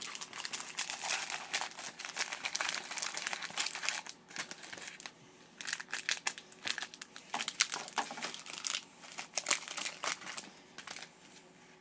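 Card pack wrappers crinkling and rustling in irregular crackly bursts as a stack of packs is handled and arranged.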